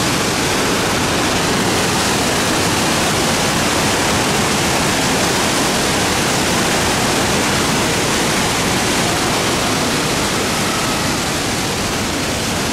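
The Gastein waterfall in Bad Gastein: a loud, steady rush of falling water.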